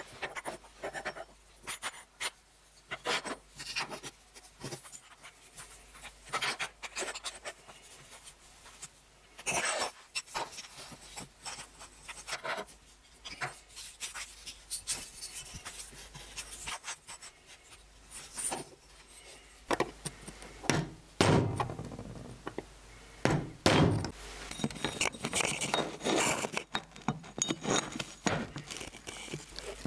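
Restored hand drill parts, wooden handles and steel pieces, being handled and fitted together on a wooden table: scattered clicks, taps and rubbing, with a few heavier knocks about two-thirds of the way in.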